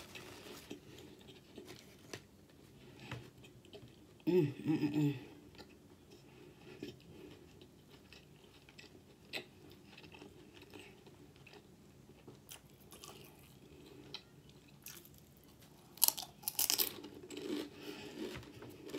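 Close-up chewing and crunching of Doritos tortilla chips, many small crackly crunches. A short hummed 'mm' comes about four seconds in, and a louder crunch of a fresh bite near the end.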